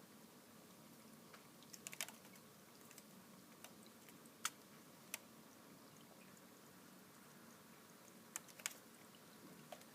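A budgie bathing in fish-tank water: a few short, sharp splashes and clicks, scattered singly and in pairs, over a faint steady hum.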